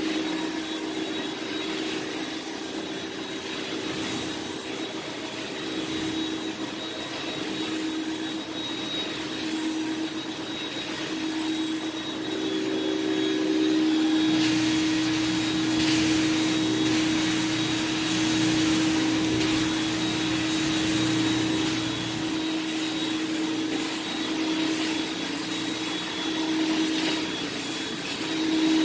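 Portable carpet-cleaning extractor running steadily: the whine of its vacuum motor, with the hiss of the wand spraying at about 300 PSI and sucking water back as it is drawn across the carpet. The hiss gets louder about halfway through.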